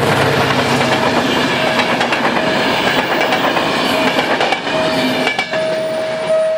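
Passenger train passing at speed over a level crossing, wheels clattering over the rail joints in a loud rush of noise that cuts off about five seconds in as the last coach clears. The crossing's warning signal keeps sounding a steady, repeating tone after the train has gone.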